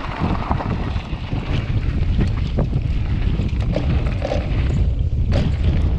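Wind rumbling on the microphone of a camera mounted on a mountain bike rolling down a dirt and gravel trail, with tyre noise and scattered clicks and rattles from the bike over the rough ground.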